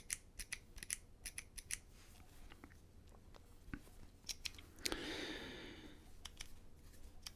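Irregular sharp clicks of a copper Slim Click pen's push-button mechanism being clicked and handled, with a brief rustle about five seconds in.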